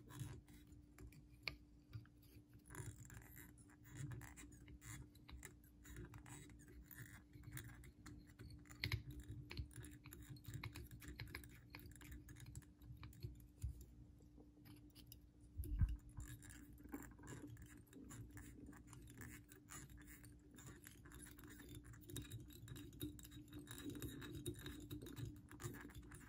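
Faint scratching and light ticking of tying thread being wrapped from a bobbin around a hook in a fly-tying vise, over a steady low hum. One louder thump comes about two-thirds of the way through.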